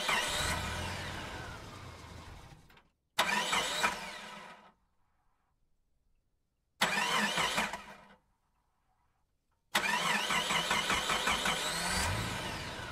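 An engine being cranked four times, each attempt whining and dying away without catching: a failed start. The last try is the longest.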